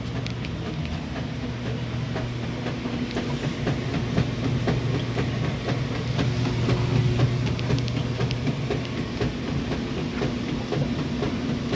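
Homemade washing-machine fan running: a steady low motor hum with a constant rattle of small clicks, a little louder midway.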